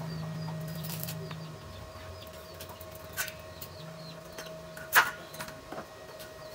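Handling of a welding helmet, with a couple of knocks; the loudest, sharp knock comes about five seconds in as it is set down on the concrete. Small birds chirp repeatedly in the background over a faint steady hum.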